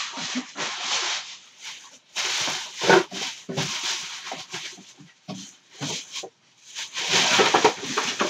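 Rustling and rubbing in irregular bursts, with a thump about three seconds in: objects and fabric being handled and rummaged through close to the microphone, a lot of noise.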